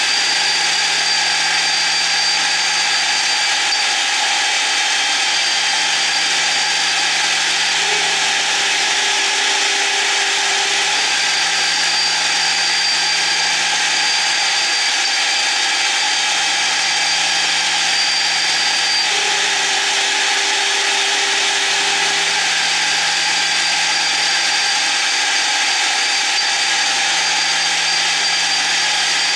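CNC milling spindle running steadily through a single finishing cut on a billet turned in a 4th-axis rotary chuck. Under the high spindle whine, lower motor tones from the axis drives switch on and off every few seconds as the machine moves.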